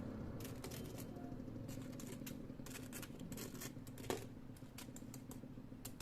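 Scattered light clicks and crackles, one a little louder about four seconds in, over a low steady background hum.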